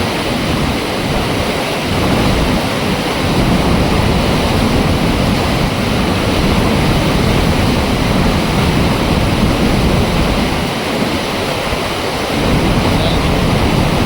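Water from an opened dam flap gate rushing out in a loud, steady flow.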